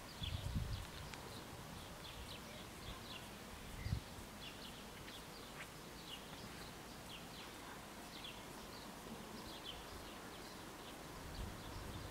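Small birds chirping faintly and irregularly, with two brief low thumps, one just after the start and one about four seconds in.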